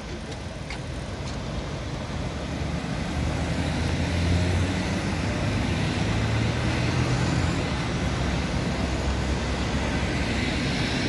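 City road traffic: cars driving past on a wide multi-lane road, a steady rush of tyres and engine hum that builds over the first few seconds and then holds.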